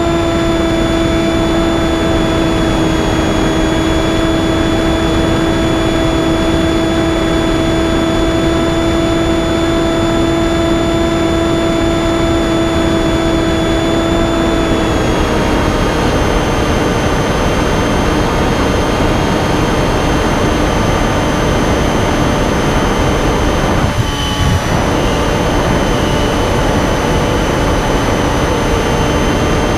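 Finwing Penguin model plane's electric motor and propeller whining at steady throttle over a constant rush of wind noise. About halfway through, the pitch drops a little as the throttle is eased, and it dips briefly once more near the end.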